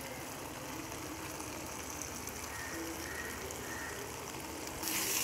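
Mutton masala sizzling faintly and steadily in a nonstick pan. Near the end the sizzle grows louder as thick tamarind extract is scraped into the hot pan.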